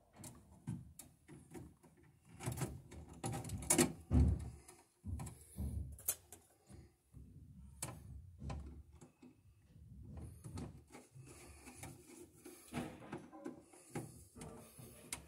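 A ground wire and hand tools clicking, tapping and scraping against a metal breaker panel as the wire is worked into place, in irregular knocks, the loudest about four seconds in.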